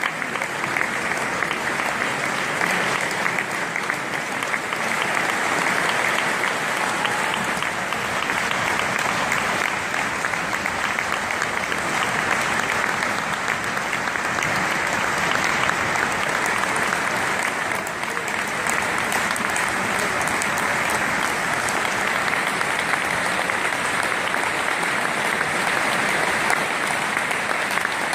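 Concert-hall audience applauding steadily: dense, even clapping.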